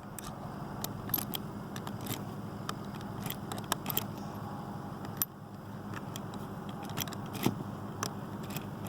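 Cartridges being loaded one by one into a lever-action rifle's magazine: a series of short, irregular metallic clicks over a steady low background hum.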